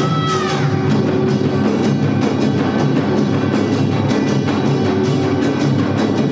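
Samulnori percussion ensemble playing a fast, dense rhythm: kkwaenggwari small gongs clanging over janggu hourglass drums and buk barrel drums, at a steady loud level.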